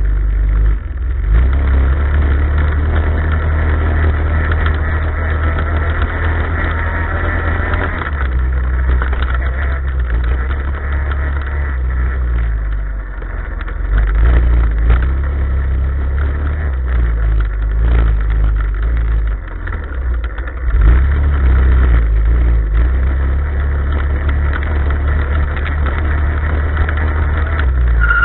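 Off-road motorcycle engine revving up and down as it is ridden over a rough dirt enduro track, with a heavy rumble of wind and jolting on the mounted camera's microphone.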